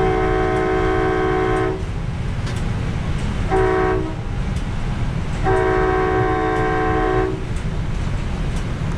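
Nathan K5LA five-chime air horn on an Amtrak passenger train, heard from inside the cab, sounding a long blast, a short one and another long one as the train approaches a grade crossing, over the steady low rumble of the train running on the rails.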